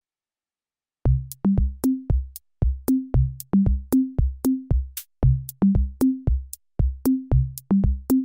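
An electronic drum-machine beat starts about a second in: deep kick drums alternating with short, higher pitched drum hits, each topped by a sharp click, in an even rhythm with no melody.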